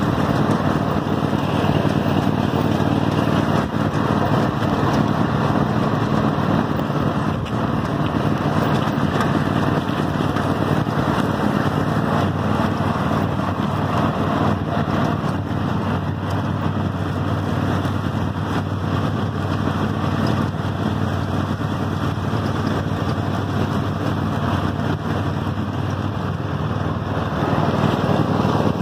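The 22-horsepower Kohler engine of a Toro 7000 series riding lawn mower, running steadily as the mower drives across the lawn.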